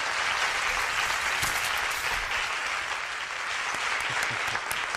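A large crowd applauding, steady clapping throughout.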